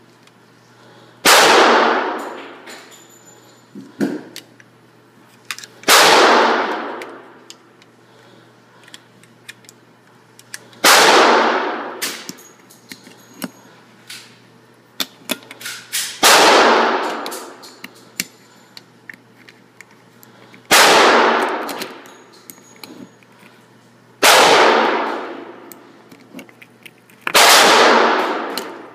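Gunshots echoing in an indoor shooting range: seven single shots spaced three to five seconds apart, each with a long ringing decay, with small clicks and knocks between them.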